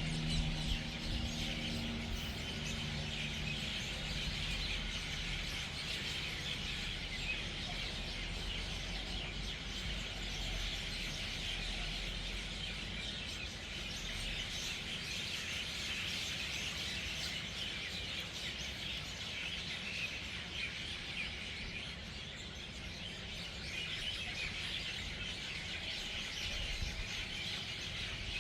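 Dense, continuous chorus of a large flock of birds chirping and chattering as they gather at an evening roost. A low vehicle hum fades away in the first few seconds.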